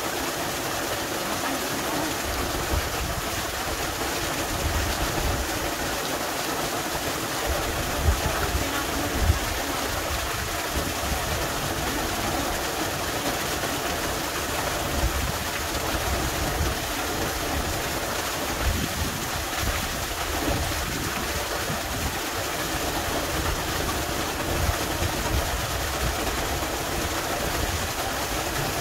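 Steady rush of a small waterfall splashing down a rock face, with irregular low gusty rumbles underneath.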